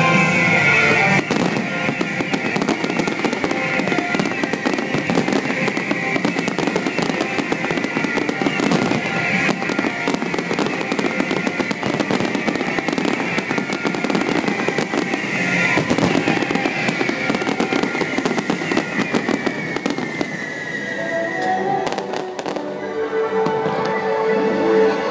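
Aerial fireworks shells bursting and crackling in a dense, continuous barrage over music. The bursts thin out about three-quarters of the way through as held musical notes come forward.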